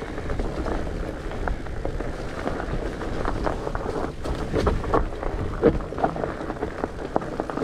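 Mountain bike riding down a rough dirt trail: tyres rolling over leaves, roots and stones, with frequent knocks and rattles from the bike, over a low rumble of wind on the microphone.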